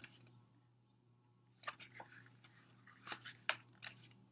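A few faint, crisp clicks and rustles of glossy album pages and photocards being handled and flipped through, over a low steady hum.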